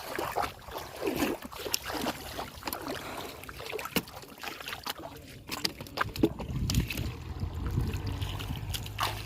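River water sloshing and splashing as hands work in it, with scattered knocks and swishes; a low steady drone comes in about six seconds in.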